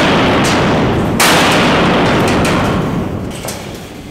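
Loud metal crashes from demolition work, one about a second in. Each rings and dies away over a couple of seconds in the echoing steel dome.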